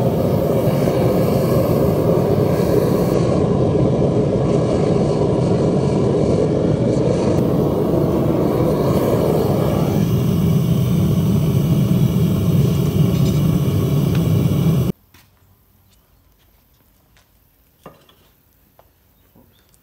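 Gas burner of a scrap-metal melting furnace running with a steady, loud rushing noise. About ten seconds in, the lid goes back on the furnace and the noise turns deeper. It stops abruptly a few seconds later, leaving only a few faint knocks and clicks.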